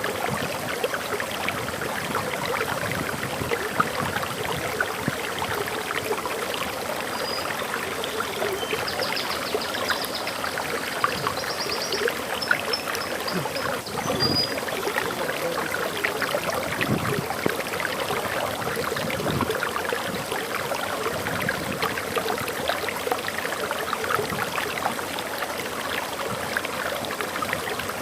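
Waterfall water running and splashing in a steady, dense rush. A few faint bird chirps come through briefly about a third of the way in.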